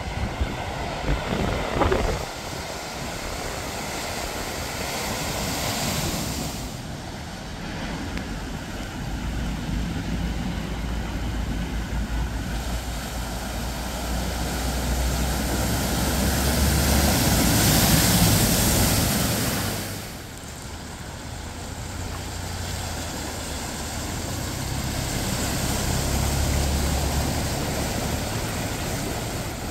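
Cars driving through deep floodwater one after another: engines running under the rush and splash of water pushed up by the wheels. The water noise swells loudest about two-thirds of the way through, and wind buffets the microphone at the start.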